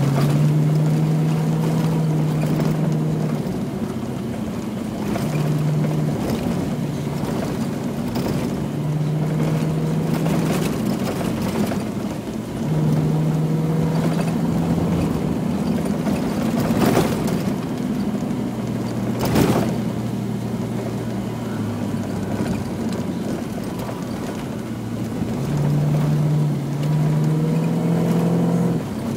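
Rally car's engine heard from inside the cabin while driving on a rough dirt track, its note stepping up and down with the throttle over steady road noise. Two sharp knocks from the rough road come about two thirds of the way through.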